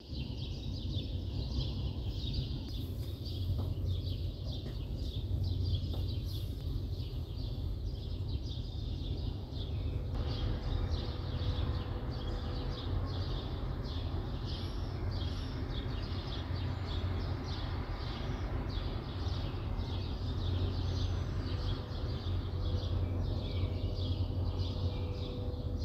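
Birds chirping in quick repeated notes, about two a second, over a steady low rumble of city traffic. About ten seconds in, a louder wash of traffic noise with a faint steady hum joins in.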